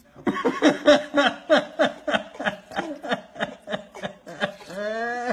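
A person laughing in quick rhythmic bursts, about four a second, ending in one longer drawn-out voiced note.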